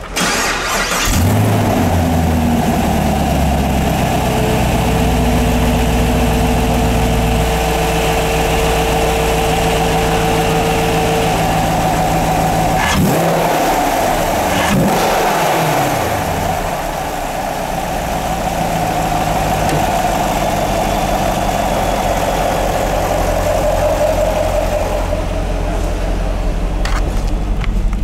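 The 6.2 L LT1 V8 of a 2021 Chevrolet Camaro SS starts about half a second in and settles into a steady idle. It is revved briefly twice about halfway through, each rev falling back to idle.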